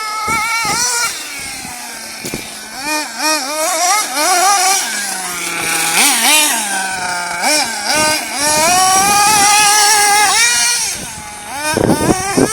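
Small nitro engine of a 1/8-scale RC buggy running hard as it is driven, its high-pitched whine rising and falling quickly with the throttle. About two thirds of the way in it is held high and steady for a few seconds, then drops off.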